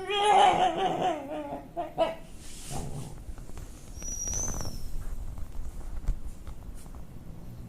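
Shiba Inu making an unusual drawn-out, wavering vocal noise for the first two seconds or so, then quieter rustling, with a brief high squeak about four seconds in.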